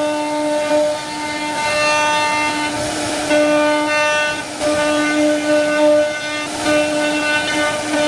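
CNC wood carving router running and cutting wood, its spindle giving a steady whine whose upper tones swell and fade every second or two as the cut changes.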